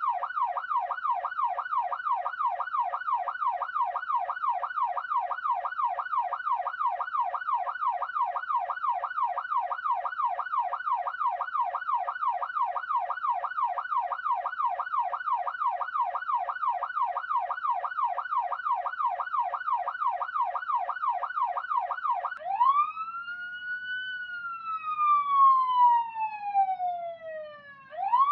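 Electronic police siren in fast yelp mode, its pitch sweeping up and down about three times a second. About 22 seconds in it changes to the slow wail, one long rise and fall, which begins to rise again at the very end.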